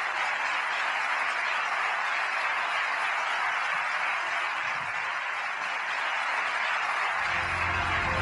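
A large audience applauding steadily in an auditorium. Near the end, low music notes come in underneath the clapping.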